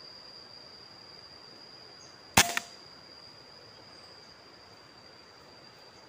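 A single shot from a PCP air rifle: one sharp crack about two and a half seconds in, followed a fraction of a second later by a softer second crack.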